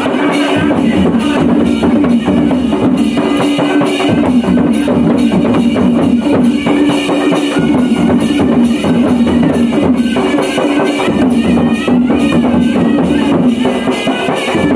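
Folk dance music for the Khadsa dance: a barrel drum beaten in a steady rhythm under a sustained melody line.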